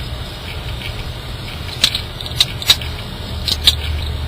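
Several short, sharp plastic clicks, about five in two seconds, from handling a Magic folding tile puzzle, over a steady low rumble of a car's cabin.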